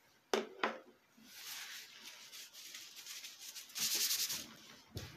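Things being handled and rubbed on a wooden workbench: two light knocks early on, then a stretch of scuffing and rubbing that is loudest about four seconds in, and another knock near the end.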